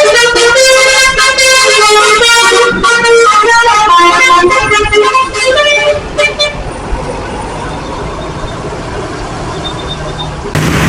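A bus telolet horn playing a quick tune of jumping notes for about six seconds, then cutting out. Traffic noise follows, with a louder vehicle coming up near the end.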